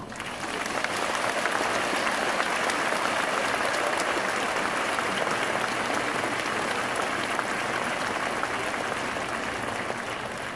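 Audience applauding: the clapping builds in the first second, holds steady, and eases slightly near the end.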